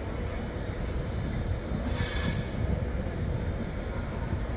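Train moving through a station with a steady low rumble, and a brief high-pitched metallic squeal from its wheels about two seconds in.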